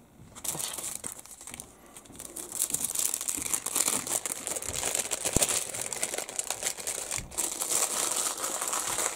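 Clear plastic kit-parts bag crinkling as it is handled, a dense crackling that starts about half a second in, breaks off briefly near the end, and stops sharply.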